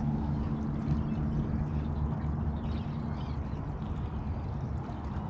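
Portable gas cooker burner running while fish cooks in the pan, giving a steady hiss, with a steady low hum underneath that fades out about halfway.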